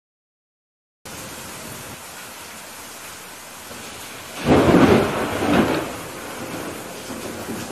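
A second of silence, then steady rain hiss with a loud roll of thunder about four and a half seconds in, swelling twice before it dies away. It is a rain-and-thunder sound effect laid under the closing titles.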